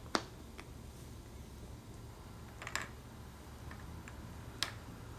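A few sparse, light clicks and taps of wooden alphabet puzzle letters being handled against the wooden puzzle board, over a faint low hum.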